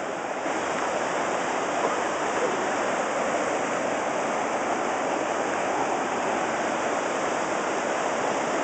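River whitewater rushing steadily over rocks in rapids and a small cascade.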